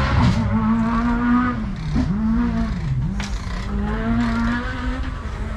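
A car engine held at steady high revs, loud, its pitch dipping briefly and recovering twice, about two and three seconds in.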